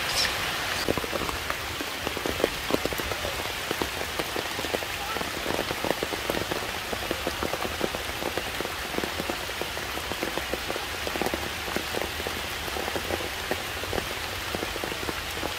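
Steady rain falling on plants and wet stone. Many separate drops are heard close by.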